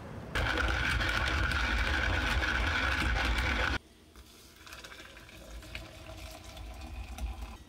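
Stovetop whistling kettle hissing and whistling at the boil for about three seconds, cut off suddenly. Then hot water pours from the kettle into a stainless French press, getting louder as it fills.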